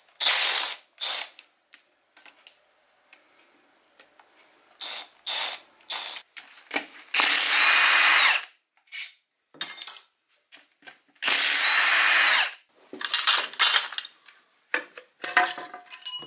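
Cordless power ratchet spinning bolts out of a Honda 2.4 engine's bottom end, in a string of short runs. Two longer runs of about a second each come about seven and eleven seconds in, with light clinks of metal between.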